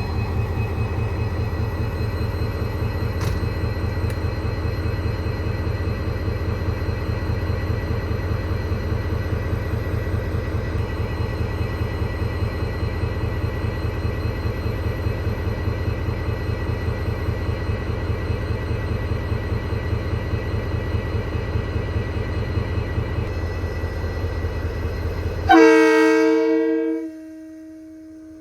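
DFB-class diesel-electric locomotive working hard under load, a steady pulsing diesel throb. Near the end the throb cuts off suddenly and a loud multi-tone locomotive horn sounds, fading to a fainter held tone.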